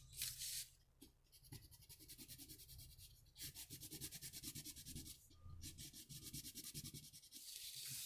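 Construction paper crayon scribbled onto construction paper in quick back-and-forth strokes: a faint, rapid scratching, several strokes a second, in runs with short pauses between them. Near the end the strokes give way to a smoother, longer rub.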